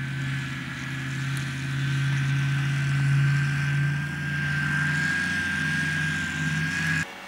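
Snowmobile engine running at a steady speed as the machine drives past, a low drone with a thin steady high whine above it, swelling a little midway. The sound cuts off suddenly about seven seconds in.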